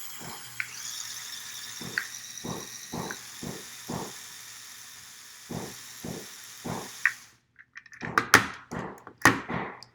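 Small electric motors spinning a model helicopter's propellers: a steady faint whir with a light knock about twice a second, cutting off suddenly about seven seconds in. After that come a run of sharp clicks and knocks from the plastic model being handled.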